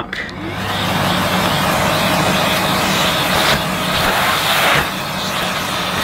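Small handheld vacuum cleaner with a bristle brush nozzle running steadily, sucking dirt off a plastic vacuum lid. Its motor builds up over the first second, with the bristles brushing against the plastic.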